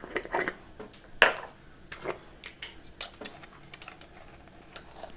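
Scattered light clicks and ticks of whole black peppercorns and fennel seeds dry-roasting in a hot stainless-steel pan, with a sharper clink about a second in.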